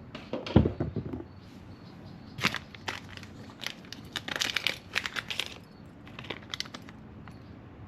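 Packaging being handled: crinkling and rustling with scattered small clicks, and a knock about half a second in.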